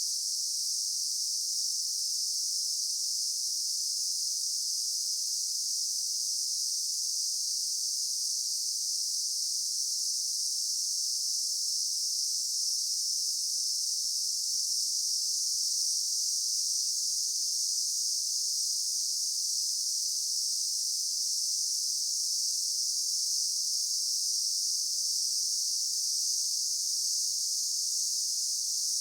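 Daytime insect chorus: a dense, steady, high-pitched buzz of many insects, unbroken and even throughout.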